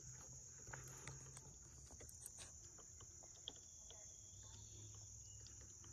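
Faint, steady high-pitched drone of insects calling in the woods, with a few soft scattered ticks.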